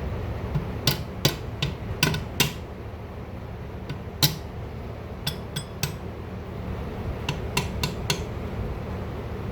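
Sharp metallic clinks and clanks, about a dozen in irregular clusters, from the gears and shift parts of an open Cub Cadet 70 transaxle being shifted and turned by hand.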